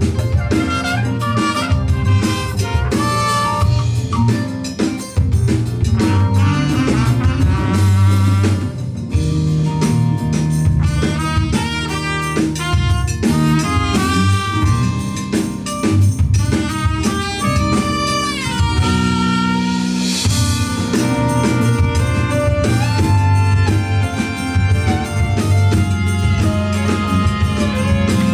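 Live jazz-fusion band playing an instrumental passage: drum kit and bass under keyboards, saxophone and trumpet, with a busy lead melody line running over the groove.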